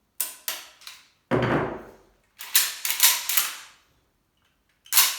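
Metal clicks and clacks from the charging handle being fitted into a semi-automatic shotgun's bolt: three sharp clicks in the first second, a longer sliding scrape at about 1.5 s, a quick cluster of clacks around 3 s, and one more click near the end.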